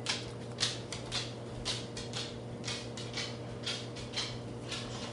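A toddler's bare feet slapping on a hardwood floor in steady steps, about two a second, over a steady low hum.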